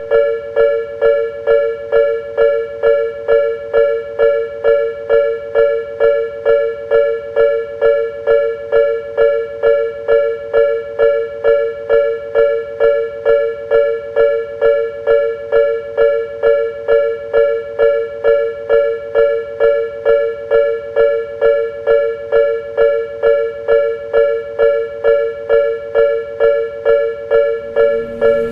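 Japanese level-crossing warning bell ringing steadily, an even clanging two-note chime at about two strikes a second, the alarm that sounds while the barriers are down for a train. A low steady tone joins in near the end.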